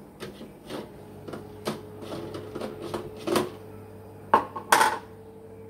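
Kitchenware clattering as it is handled: a run of knocks and clinks of metal pots and containers, with two sharp knocks close together about three-quarters of the way through, over a faint steady hum.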